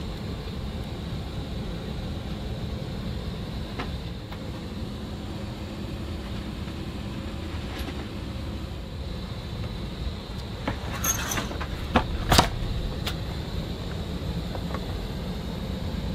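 Steady engine and air noise of a Dassault Falcon 2000 business jet, heard inside its cabin, with a faint steady high whine. A few clicks and sharp knocks come about eleven to twelve seconds in.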